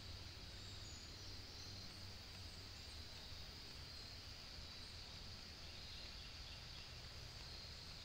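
Faint forest ambience: a steady high-pitched insect drone with a low hum underneath.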